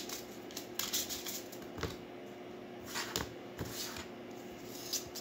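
Tarot cards being handled over a table: a handful of short, separate sounds of cards flicked, slid against each other and set down.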